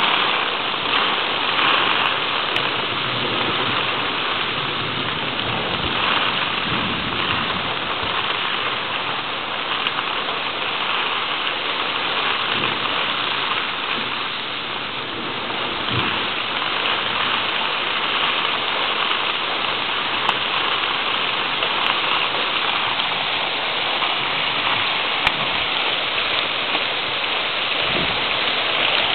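Steady rain pouring down in a thunderstorm.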